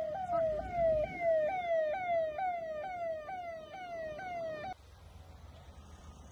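Electronic emergency-vehicle siren sounding in a fast repeating pattern, each note jumping up and sliding down, about two a second. It cuts off suddenly a little before five seconds in.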